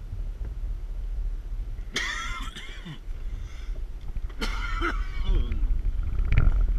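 Low, steady rumble of a vehicle driving over a dirt road, heard from inside the cabin. Two jolts, about two seconds in and again near four and a half seconds, are each followed by about a second of high-pitched squeaks or whines.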